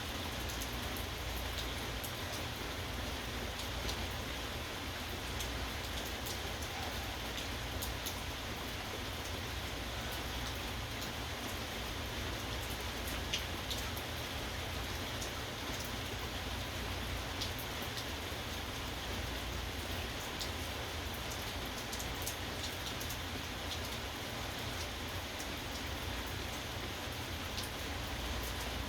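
Steady rainfall, with individual drops ticking sharply on a hard surface throughout.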